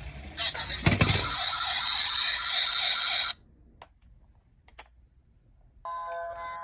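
Toy emergency-vehicle minicar's electronic siren sounding harsh and buzzy after a thump about a second in, then cutting off suddenly. A few faint clicks follow, and a tinkling music tune starts near the end.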